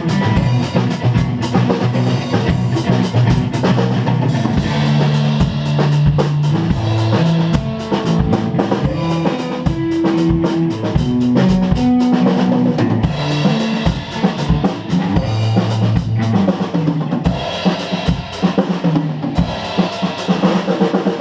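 A band playing live at a sound check: a drum kit pounding out steady beats with bass and snare, under held low notes that shift in pitch.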